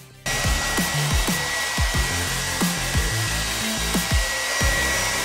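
Handheld hair dryer switched on about a quarter second in, then blowing steadily with a thin high whine, over background music with a steady beat.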